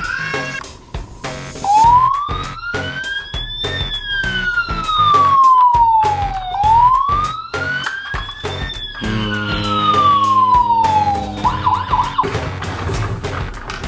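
Toy police car siren sounding two slow wails, each rising and then falling over about five seconds, over background music.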